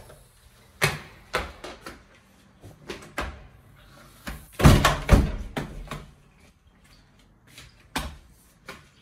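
Flat's front door being unlocked and opened: a series of separate clicks and knocks from the lock, handle and door, with the loudest clatter about halfway through.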